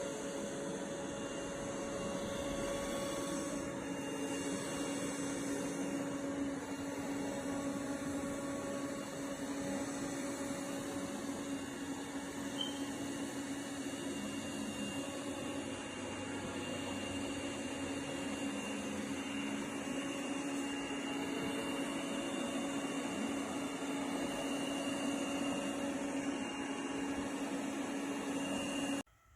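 Robot vacuum cleaner running with a steady motor whine and hum, cutting off suddenly near the end.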